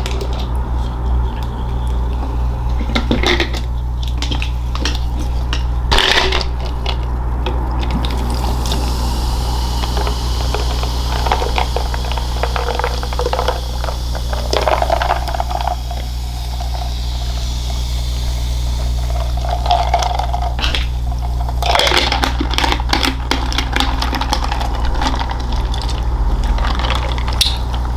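Close-miked eating: crisp crunching, wet chewing and squishing, with a few scrapes and clicks, in bunches near the start and again near the end. A steady low hum sits underneath.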